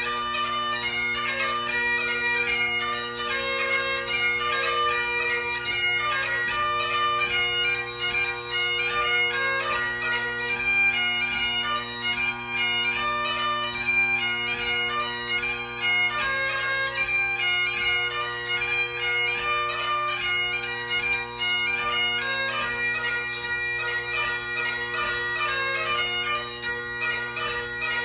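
Great Highland bagpipe played solo: steady drones under a fast-moving chanter melody with rapid gracenote ornaments, from a march, strathspey and reel set.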